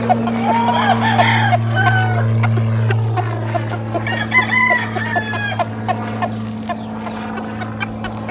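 Gamefowl roosters clucking, with crows about a second in and again around four seconds in, over a steady low hum.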